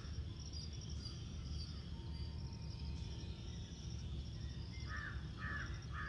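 Crow cawing, a quick series of short harsh caws starting about five seconds in, over faint outdoor ambience of a low steady rumble and a high insect hiss.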